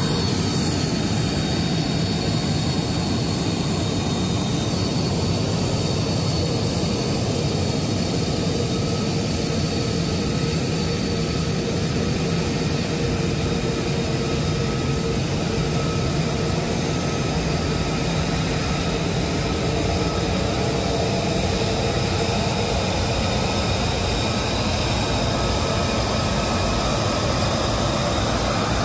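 F-35A Lightning II fighter jet's turbofan engine running, a steady jet noise with a high whine laid over it.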